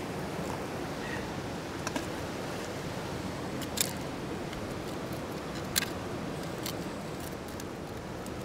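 Metal crevice tool picking and scraping at hard-packed gravel in a bedrock hole, with a few sharp clicks of metal and stone, the loudest about four and six seconds in, over a steady rush of moving stream water.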